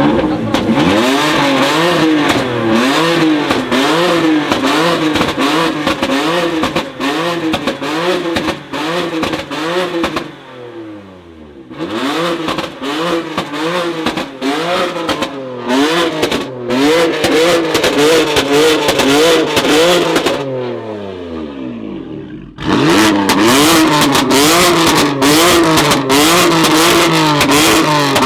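A tuned sports car engine with a loud aftermarket exhaust being revved in quick repeated blips, about one and a half a second, with sharp cracks between them. Twice, about ten and twenty seconds in, the revs fall away for a second or two before the blipping starts again.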